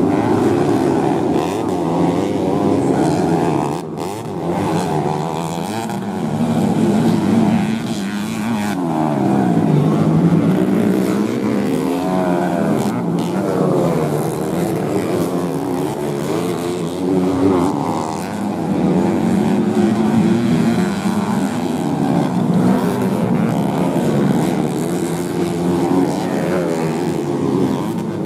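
Modified underbone racing motorcycles on a dirt grasstrack, engines revving hard and backing off as the bikes corner and jump. More than one engine is heard at once, their pitch rising and falling over and over.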